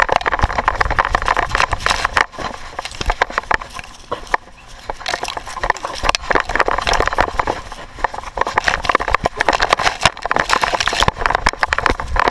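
A dog running with a GoPro strapped to its body: rapid thumps and rattles of the camera and mount jolting with each stride. It goes quieter for a few seconds about two seconds in, then picks up again.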